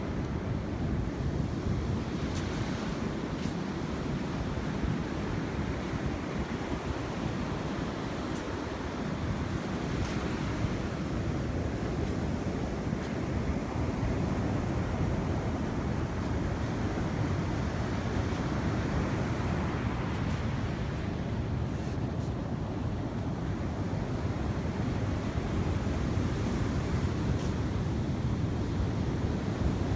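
Sea waves washing steadily onto the shore, with wind on the microphone.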